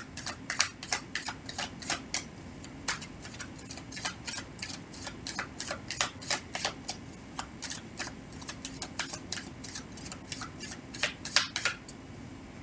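A deck of tarot cards being shuffled in the hands, the cards clicking against each other in quick light clicks, about three or four a second, stopping near the end.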